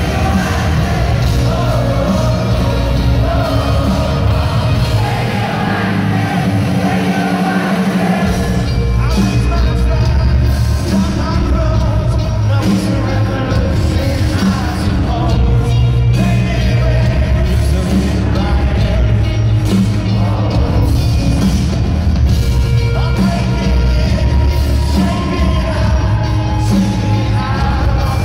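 A rock band playing live, with a lead singer over electric guitars and drums, heard from among the crowd in a large arena. The bass drops out briefly about six seconds in and comes back at about eight seconds.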